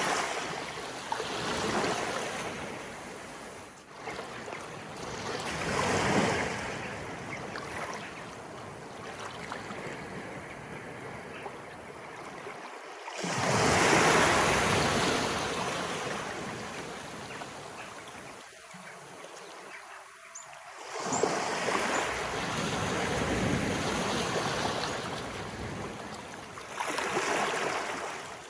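Incoming tide: small waves rolling in and washing up the shore, each one swelling into a splashing rush and then draining away, with a surge every few seconds. The largest comes about halfway through.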